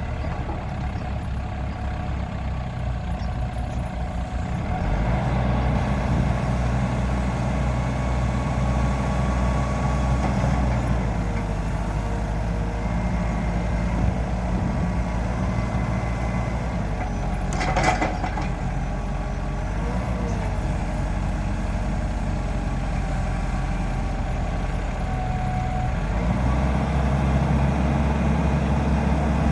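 Diesel engine of a 2005 Mecalac 12MXT wheeled excavator running. Its speed picks up about five seconds in, eases off near eleven seconds and rises again near the end. A sharp knock sounds about eighteen seconds in.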